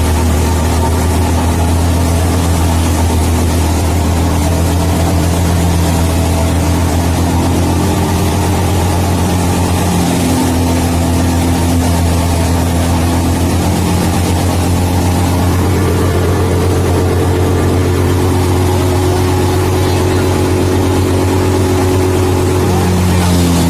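Wheat thresher and the engine driving it running steadily: a loud, deep, continuous hum with higher tones that shift slightly in pitch now and then.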